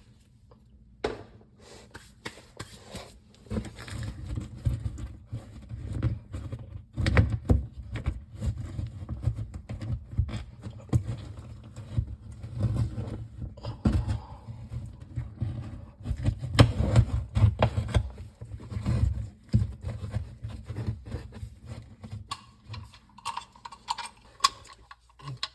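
Sheetrock being cut by hand with a knife: irregular scraping strokes and knocks through the board.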